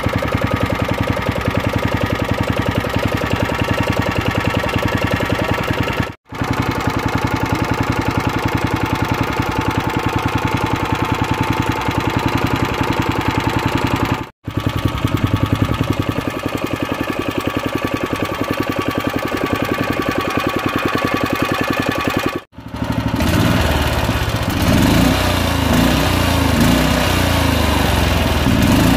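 Briggs & Stratton Vanguard 4HP single-cylinder engine running steadily, with three very brief cut-outs in the sound. From about three-quarters of the way through it runs louder and its speed wavers as the throttle linkage is worked by hand.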